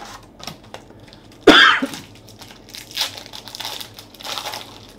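A single loud cough about a second and a half in, then the rustle and crinkle of a booster pack's wrapper being handled and opened.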